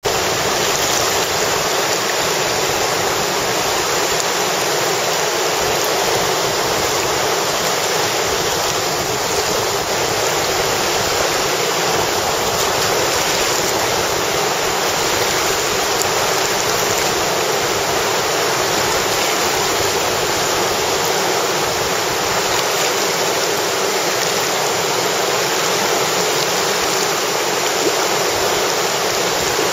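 Class III whitewater rapids rushing over rock ledges: a loud, steady wash of churning water that does not change.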